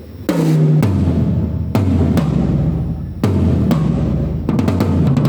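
Drum kit played in a sound check: single, spaced strokes, low drum hits that ring on, one with a clear pitch about a third of a second in, mixed with sharper strikes, then a quick run of hits near the end.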